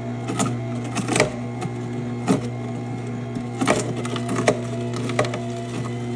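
Electric juicer motor running with a steady hum, broken by irregular cracks and knocks as pieces of fruit are pushed in and shredded.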